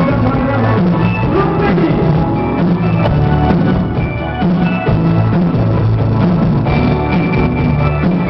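Rock band music playing steadily, with drum kit and guitar.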